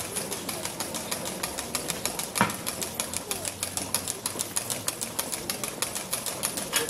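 Street crowd of a procession with a rapid, fairly even run of sharp high clicks, several a second, and faint voices in the background; a louder knock comes about two and a half seconds in.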